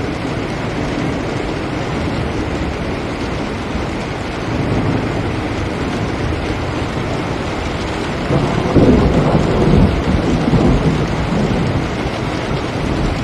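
Steady rain falling on a window, a dense even hiss. About eight seconds in, a low rumble swells up and fades over the next few seconds.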